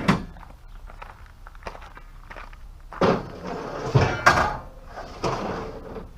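A series of knocks and thuds, with the loudest two close together about four seconds in.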